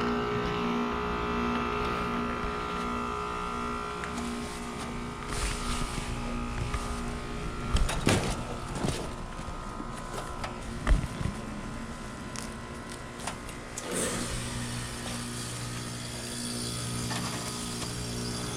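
Carrier Comfort 15 heat pump outdoor unit humming steadily, with a few knocks in the middle. About fourteen seconds in, the hum strengthens and a hiss comes up as the unit comes back on after defrost.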